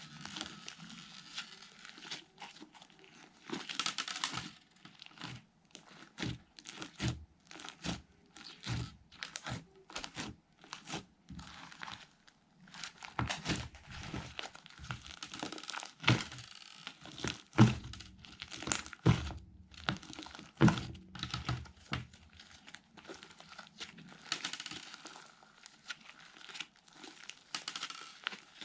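Slime being squished and stretched by hand: an irregular run of sticky crackles and pops, busiest in the middle, with a few stretches of softer hissing crackle.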